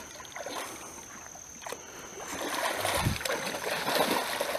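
A dog wading through shallow water, its legs sloshing and splashing, louder from about halfway in.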